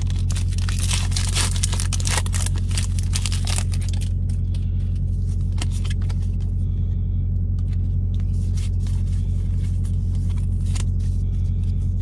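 Foil booster-pack wrapper crinkling as Pokémon cards are pulled out of it, then the cards shuffled and flicked through, clicking now and then. Under it runs a steady low drone from the idling truck.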